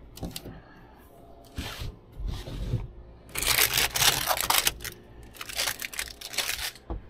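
Sliding glass lid of a store chest freezer being slid open and then shut: two scraping runs along its track, each about a second and a half long, a little after midway. A few light knocks come before them.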